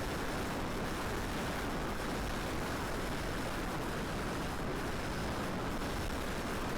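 Strong gusty wind buffeting the microphone: a steady, heavy rumbling hiss with no break.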